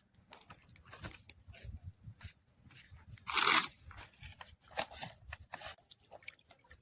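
Irregular small crunches, clicks and tearing sounds, with one louder scraping rustle about half a second long some three and a half seconds in.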